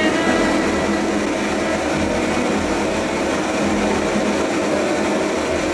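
Large propane torch burning steadily with a loud rushing of flame, its flame playing on a steel knife blade that is being heated for hardening.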